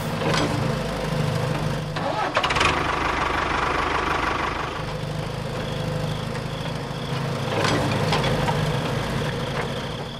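Small electric motors and gear trains of a homemade model excavator whirring steadily. The tone changes a few times as different motions start and stop.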